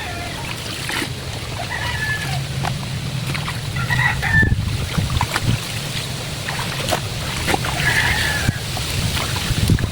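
Chickens clucking and calling several times, with water splashing and sloshing from laundry being washed by hand.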